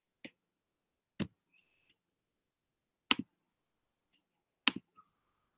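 A few sharp, isolated clicks from working a computer, two of them quick double clicks, with two faint brief tones between them.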